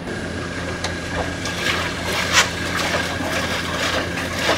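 Water splashing and sloshing in a wolf's plastic water tub as the wolf wades and moves about in it, in short irregular splashes over a steady low hum.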